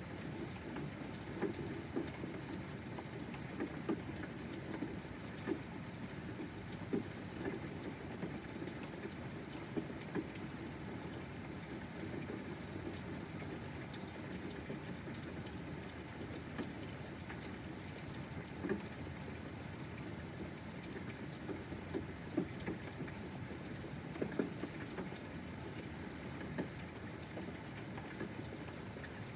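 Steady rain falling, with scattered louder drops ticking at irregular moments.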